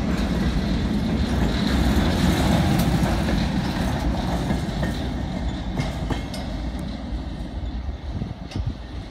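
Freight train's cars rolling past close by, steel wheels rumbling on the rails, with a few sharp clicks over the rail joints; the sound fades steadily in the second half as the end of the train passes and rolls away.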